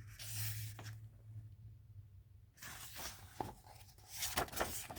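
Soft paper rustling and handling noises as a picture book's pages are turned, with a few faint clicks, over a faint low hum.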